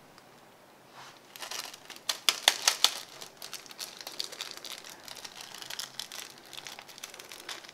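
Small plastic seasoning sachet of ramen vegetable flakes crinkling and tearing open between the fingers. A run of sharp crackles starts about a second and a half in, then gives way to lighter rustling.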